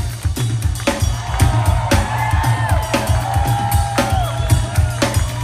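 Live funk band playing, heard from the crowd: drum kit hitting about twice a second over a steady, busy bass line, with held instrument notes on top.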